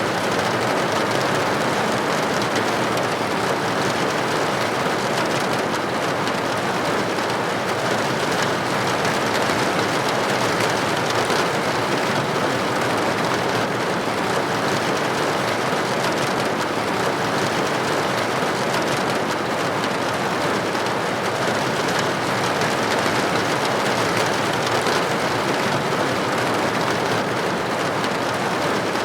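Steady rain falling on a roof, a dense even patter of drops with no letup.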